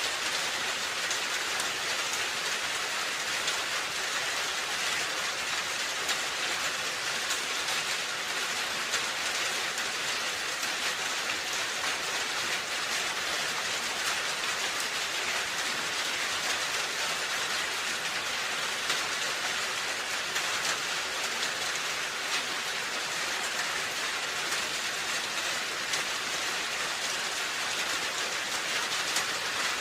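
Steady rain falling on a roof: an even hiss of many drops with small scattered taps.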